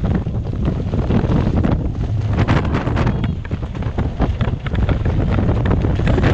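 Storm-force wind gusts of around 60 knots buffeting an anchored sailboat and the microphone: a heavy, continuous rumble that surges and eases, with a dense crackle of sharp hits on top.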